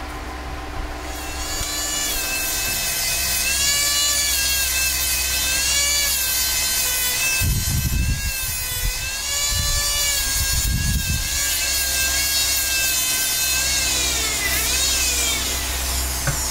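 Handheld micromotor rotary tool whining as its small abrasive wheel grinds and polishes a carved quartz stone, the pitch wavering up and down as the wheel is pressed on the work. Near the end the motor's pitch drops and climbs back up.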